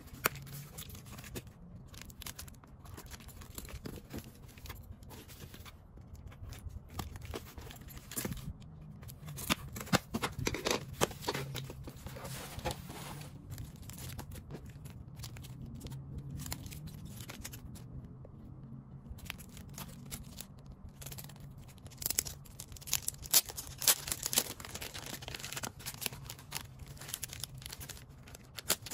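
Packaging being opened by hand: scissors snipping through tape on a cardboard mailer, then album packages rustling and plastic shrink wrap crinkling and tearing as it is peeled off. The sounds come in irregular bursts of clicks and crackles, busiest around ten seconds in and again after about twenty seconds.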